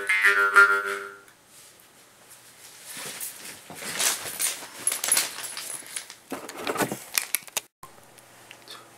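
A jaw harp twangs a droning tone with shifting overtones for about the first second, then stops. After a short pause come a few seconds of rustling and clattering handling noise as the camera is picked up and moved.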